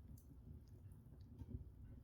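Open log fire crackling faintly: a few small, sharp pops and ticks of burning wood over a low, steady rumble.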